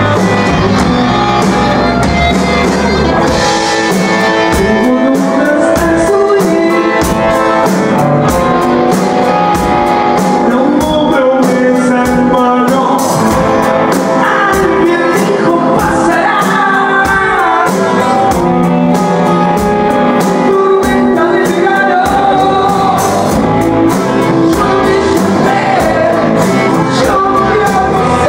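Rock band playing live: electric guitars and a drum kit, with a voice singing over them.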